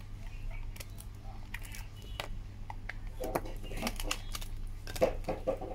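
Handling sounds from a plush talking unicorn toy as its plastic battery compartment is opened: a scatter of small plastic clicks and taps with some fabric rustling.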